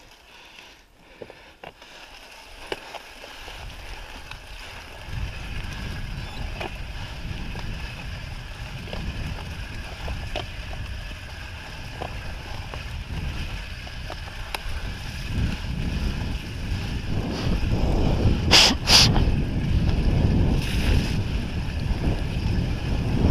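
Mountain bike riding a dirt trail, heard from an on-board camera: tyres rolling and wind buffeting the microphone, a low rumble that grows louder as speed builds. Small knocks are scattered through it, and two short sharp noises come close together about three-quarters of the way in.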